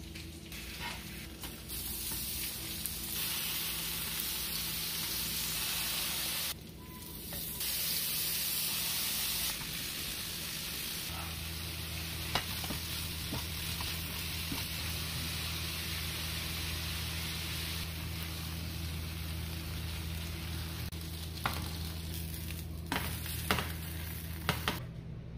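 Steak strips with onion and peppers sizzling as they fry in a skillet, turned with metal tongs, with a few sharp clicks of the tongs against the pan in the second half.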